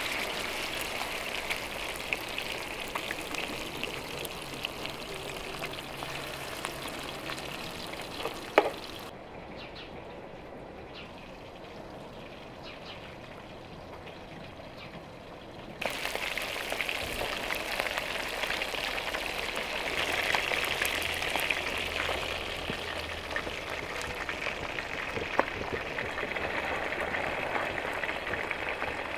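Fish steaks frying in a pan of hot oil: a steady sizzle full of small crackles. A sharp click comes about a third of the way in, then the sizzle drops to a quieter, duller hiss for several seconds before coming back at full strength.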